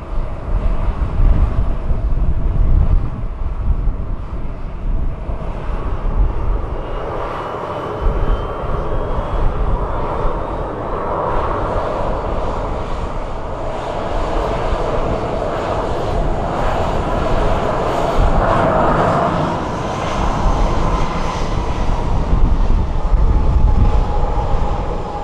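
Boeing 737-800's CFM56-7B jet engines running as the airliner goes by, a steady loud rumble and hiss. A thin engine whine slowly rises in pitch, and later another falls in pitch.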